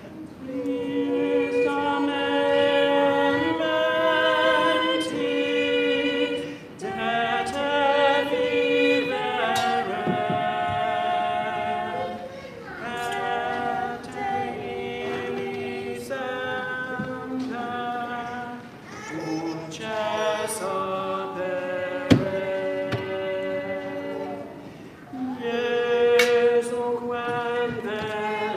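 Church choir singing a cappella in several parts, long held notes moving in phrases. A single sharp click sounds about two-thirds of the way through.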